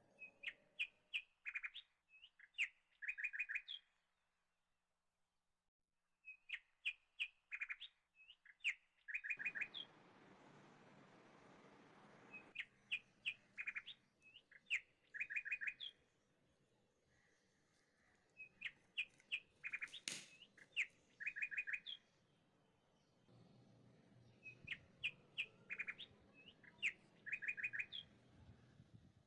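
Small birds chirping in repeated bouts of quick high notes with short pauses between, over a faint hiss that comes in twice.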